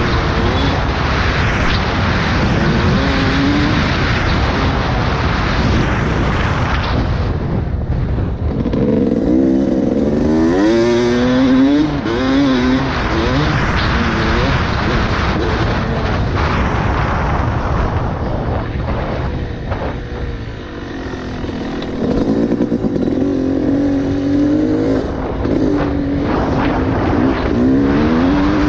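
Yamaha YZ250 two-stroke dirt bike engine being ridden hard, its pitch rising and falling over and over as the throttle is opened and shut, over a constant rushing noise.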